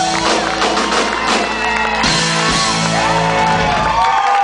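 Live band playing rock music, with whoops from the crowd. The bass drops out right at the end as the song finishes.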